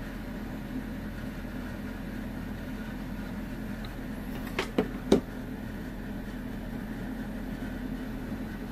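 Steady mechanical background hum, like a fan or air-conditioning unit, with two short clicks a little past halfway.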